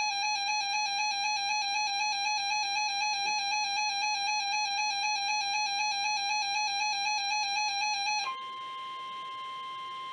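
Emergency Alert System attention signal: a loud, steady two-tone alarm (853 and 960 Hz) sounding for about eight seconds. It then switches abruptly to the quieter single steady 1050 Hz NOAA Weather Radio warning alarm tone, which signals that a warning message is about to be broadcast.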